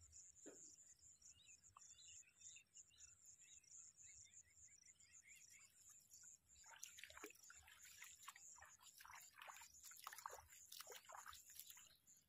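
Faint sloshing and splashing of feet wading in shallow water, a quick run of splashes from about seven seconds in, over a faint high, pulsing chirring background.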